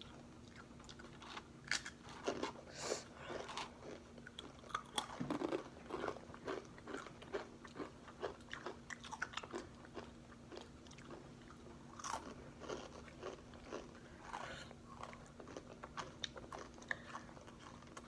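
Crunching and chewing of Takis rolled corn tortilla chips: irregular crisp crunches, several a second, as two people eat.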